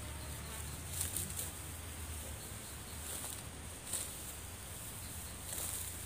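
Insects buzzing in a field, with the high buzz swelling briefly now and then, over a low steady rumble.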